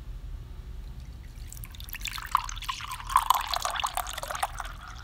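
Edamame milk poured from a bottle into a drinking glass, starting about two seconds in: a splashing trickle of liquid as the glass fills.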